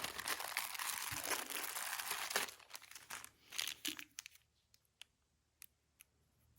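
Crinkling and rustling of something being handled for about two and a half seconds, then a few scattered small clicks and ticks.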